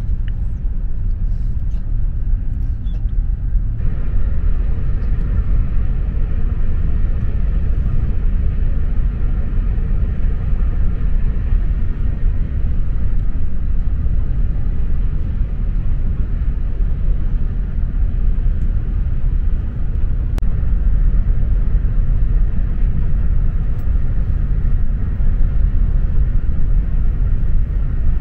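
Steady low rumble inside a OUIGO high-speed train running on the line. About four seconds in, a higher hiss joins the rumble and stays.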